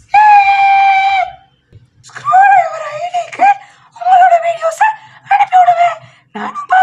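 A child's high-pitched wordless cheering squeals: one long held cry lasting about a second, then a string of shorter cries rising and falling in pitch.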